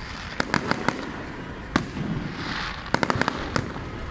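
Fireworks going off: clusters of sharp bangs, a quick run just under a second in, a single one midway and a rapid string of about six near the end, with a hissing crackle in between.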